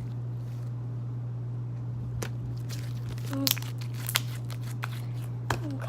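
Slime being squeezed and pressed in the hands, giving scattered sharp clicks and small pops a second or so apart, over a steady low hum.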